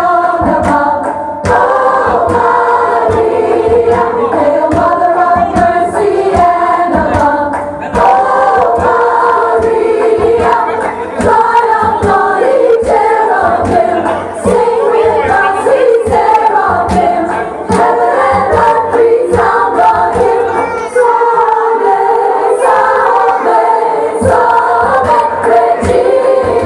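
A group of women singing together in chorus over musical accompaniment.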